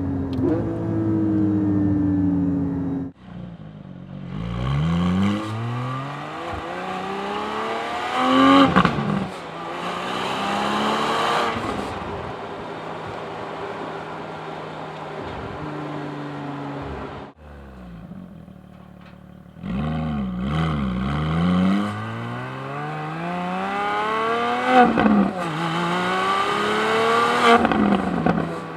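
Porsche 718 Cayman GT4's 4.0-litre flat-six engine and exhaust heard from outside the car while driving, pulling up through the gears: the pitch climbs, drops back at each upshift, and climbs again. The sound cuts off abruptly twice and starts a fresh pull.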